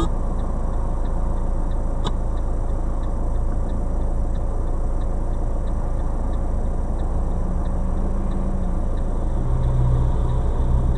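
Car idling while stopped in traffic, heard from inside the cabin as a steady low rumble. Faint, even ticking runs about twice a second, with one sharp click about two seconds in and a low hum rising near the end.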